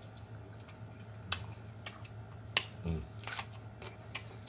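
Eating sounds: about five sharp clicks and taps in under three seconds as long fingernails pick food out of a glass bowl of seafood boil, with a short low hum about three seconds in.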